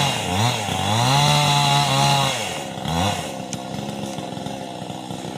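Chainsaw engine revving, its pitch swinging up and down repeatedly, then dropping to a lower, steadier run about three seconds in.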